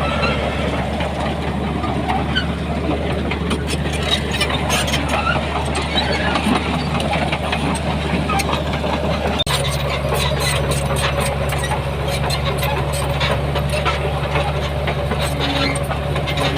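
Heavy diesel earthmoving machinery running steadily, with scattered clicks and clanks over it; the sound changes abruptly about nine and a half seconds in.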